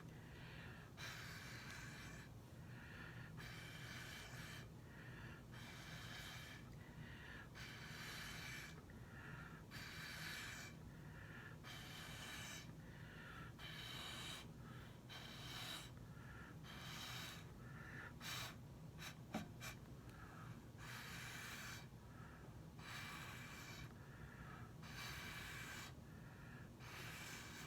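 Faint, repeated puffs of breath blown through a drinking straw, about one a second, to push wet acrylic paint across a small Dutch-pour canvas. A few faint clicks come about two-thirds of the way through.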